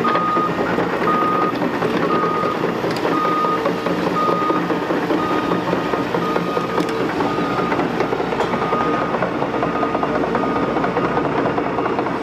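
A heavy demolition excavator, a Liebherr R930, running steadily with machinery noise and a few faint knocks. A reversing alarm beeps about once a second over it.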